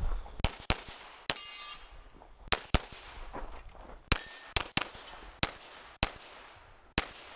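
Pistol shots during a timed competition stage: about a dozen sharp shots at irregular spacing, several fired as quick pairs on each target with short pauses between.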